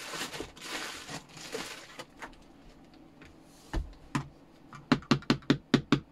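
Handling rustle and two soft knocks, then from about five seconds in a quick run of sharp plastic clicks, about five a second, as the buttons of a handheld mains socket tester are pressed.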